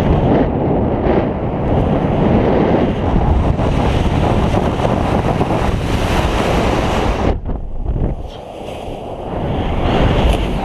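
Strong wind noise buffeting the camera microphone from the airflow of fast acrobatic paraglider flight. The rush cuts off sharply about seven seconds in, then builds again near the end.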